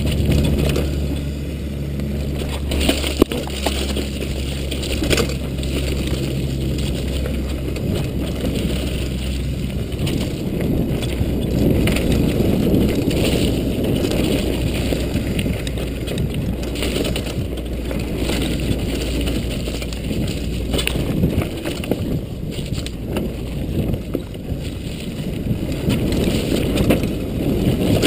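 Mountain bike running fast down a rough dirt trail: tyres crunching over dirt and rocks, with frequent knocks and rattles from the bike frame and parts. Heavy wind buffeting on the chest-mounted camera's microphone runs throughout.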